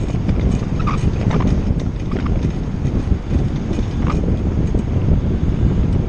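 Strong wind buffeting the microphone of a camera on a moving bicycle, a steady low rumble, with a couple of brief higher ticks about one and four seconds in.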